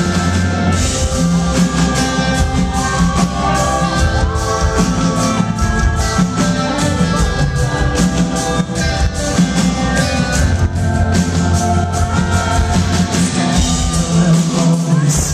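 Live rock band playing a song: a drum kit keeping a steady beat under guitars and keyboards, with a voice singing.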